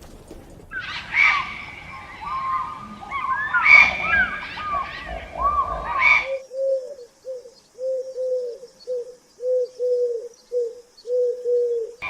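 Several birds chirping over one another, then, after an abrupt cut, a single bird calling in a steady run of short, low, repeated notes, about two a second.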